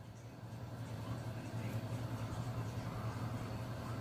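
Close-miked chewing of a bite of raw jalapeño pepper, soft and wet, over a steady low hum that is the loudest thing heard.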